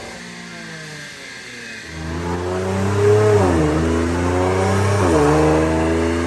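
Infiniti Q50 Red Sport's twin-turbo VR30DDTT V6 running through AAM Competition 3-inch resonated downpipes and resonated catback exhaust on a dyno. The revs fall off quietly at first, then about two seconds in the engine comes back on throttle and gets louder, its pitch climbing with two quick drops and recoveries around the middle and about five seconds in.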